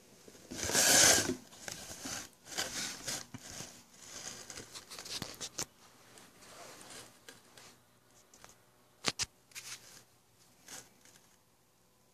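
Rustling handling noise as a T-shirt is pulled out, unfolded and spread flat, loudest about a second in and in bursts for the first half. A few sharp clicks follow near the end.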